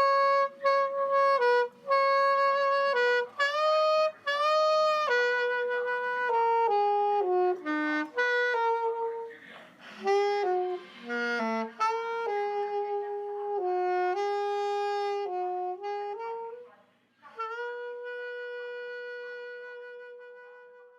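Background music: a single solo melody line of held notes on a wind instrument. About seventeen seconds in it settles on one long held note that slowly fades out.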